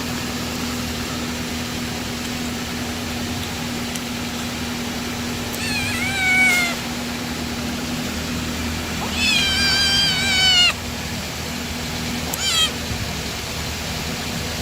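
Domestic cat meowing three times: one meow about six seconds in, a longer drawn-out one around nine to ten seconds, and a short one near the end. A steady low hum runs underneath.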